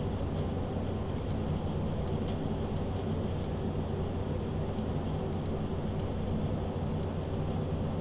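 Light mouse clicks, about a dozen at an irregular pace of one or two a second, each a quick press-and-release pair, as a password is keyed in on an on-screen keyboard. A steady low hum runs under them.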